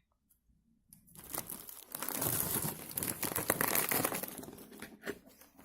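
Crinkling plastic snack bag being handled and torn open, a dense crackle that starts about a second in.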